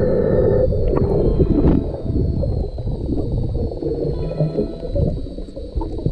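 Muffled underwater noise picked up by a diving camera: a dull low rumble with gurgles, louder in the first two seconds, and a faint steady high whine.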